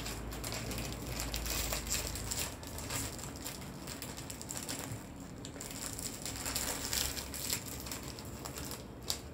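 Clear cellophane wrap crinkling and rustling in the hands as it is gathered around a pulp-coated apple and tied off with ribbon, a steady run of small crackles.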